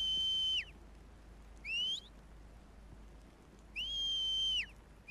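Sheepdog handler's whistle commands to his working dog. A held note falls away shortly after the start, a short rising whistle comes about two seconds in, and another held note drops off near the end.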